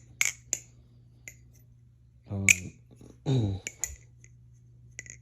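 Aluminum barebones balisong clone being flipped: its handles and blade clack and click sharply against each other at an uneven pace, about seven clicks.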